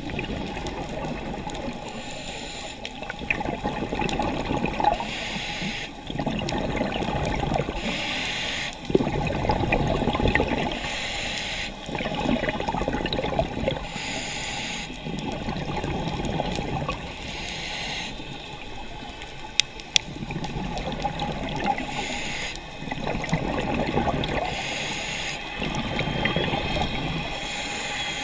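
Scuba regulator breathing heard underwater, repeating every few seconds: a high hiss on each inhale, then a rushing gurgle of exhaust bubbles on each exhale. Two sharp clicks come about two-thirds of the way through.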